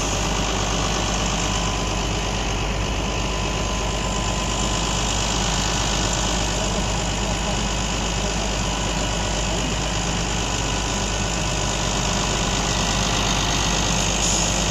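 Heavy diesel engines running steadily at constant speed, a farm tractor towing a stuck refuse truck out of the field on a cable.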